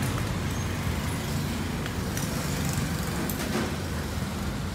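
Steady low rumble of road traffic going by, with a few light clicks as chopsticks are picked up from the table holder.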